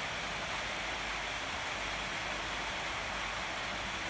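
Light rain falling: a steady, even hiss with no separate drops standing out.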